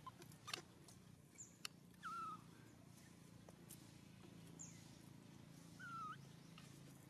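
Newborn macaque calling faintly: two short, thin cries about four seconds apart, each dropping in pitch and then holding level.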